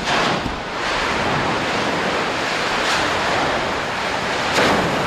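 Loud steady rushing roar from the billowing steam cloud of Mount Etna's eruption, mixed with wind buffeting the microphone. It surges briefly at the start and again near the end.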